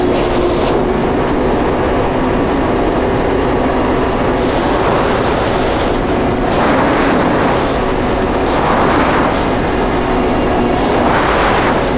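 Supercharged Yamaha GP1800R SVHO personal watercraft running steadily at cruising speed, its engine hum under a loud rush of wind and water. The rush swells four times, about every two seconds, in the second half.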